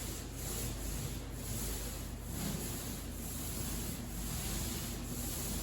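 Paint roller rolling primer onto drywall, a wet rubbing swish repeated in strokes about twice a second, over a steady low hum.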